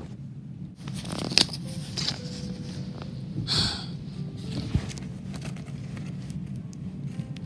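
Handling noise from plastic action figures and a paper cutout being moved about on a cloth blanket: soft rustling with scattered small clicks and knocks. The sharpest click comes about a second and a half in, and there is a short rustle a little past the middle.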